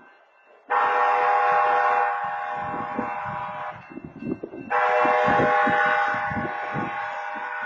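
Train horn sounding two long blasts of about three seconds each, every blast a steady chord of several tones, with a short gap between them.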